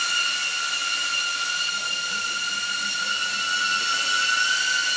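DJI Avata FPV drone's ducted propellers running in flight: a steady high-pitched whine over a rushing hiss.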